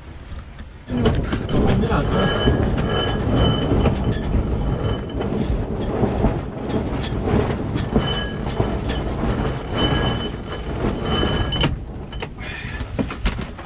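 Loud rushing and buffeting of wind and water around a sailing yacht under way, with a thin steady squeal above it; it starts abruptly about a second in and drops away shortly before the end.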